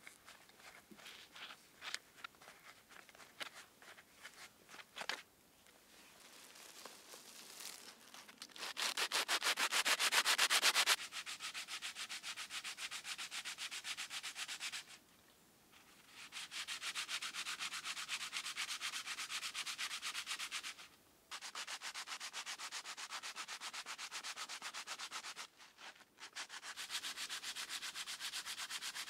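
A rusty vintage cleaver blade being scoured with an abrasive, rubbed rapidly back and forth in spells of several seconds with short pauses between, to clean off the rust. The first few seconds hold only scattered light scrapes and taps; the strokes are loudest about nine to eleven seconds in.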